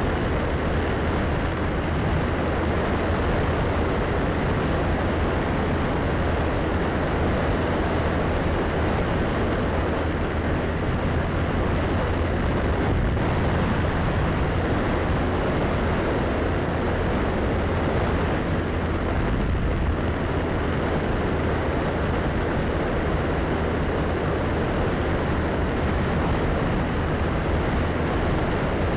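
Honda Rebel motorcycle engine running steadily at cruising speed, with wind and road noise rushing over the microphone. The sound holds an even level throughout, with no shifts or revving.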